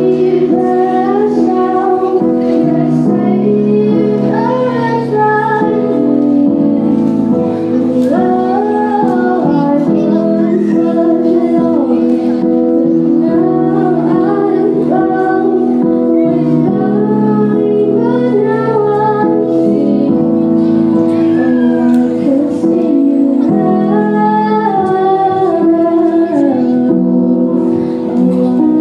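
A girl singing a solo melody through a microphone over steady, held accompaniment chords that change every few seconds.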